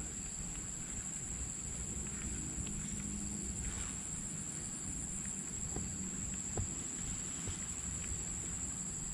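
Quiet outdoor ambience: a steady high-pitched drone over a low rumble, with a few faint ticks.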